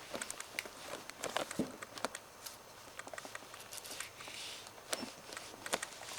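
Irregular light clicks, taps and rustling, with a brief rustle about four seconds in.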